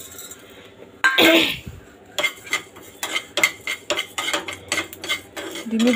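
A spoon stirring and scraping dry coriander seeds and panch phoron around a small black pan as they roast, giving quick rattling clicks and scrapes of spoon and seeds on the pan. A louder clatter comes about a second in.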